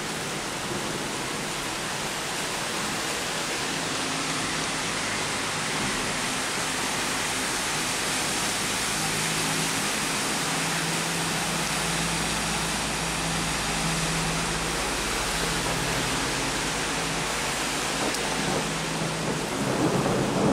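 Heavy rain pouring onto a flooded street, a steady hiss of drops hitting running water. A faint low hum sits underneath from about nine seconds in, and the rain swells louder near the end.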